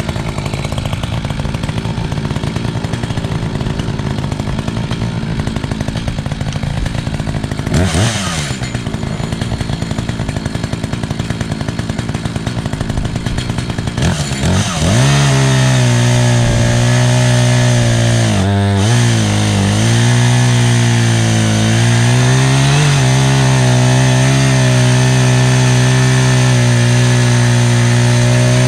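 Echo CS-590 two-stroke chainsaw idling, with a brief blip of the throttle about 8 seconds in, then opened up to full throttle about halfway through and held there, its pitch sagging briefly a couple of times.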